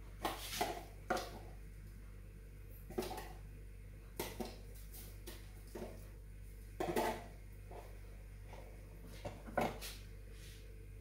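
A series of short, irregular clicks and light clatters of small hard objects, coming in small clusters a second or two apart over a faint steady hum.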